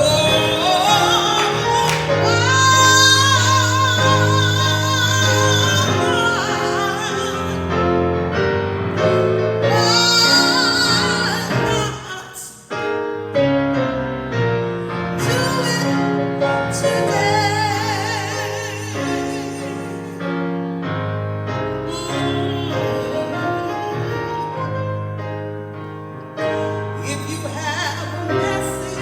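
Gospel music: a solo voice singing long held notes with a strong vibrato over keyboard accompaniment, with a short break about twelve seconds in.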